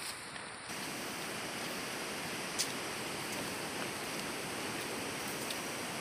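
A steady, even hiss with one faint tick about two and a half seconds in.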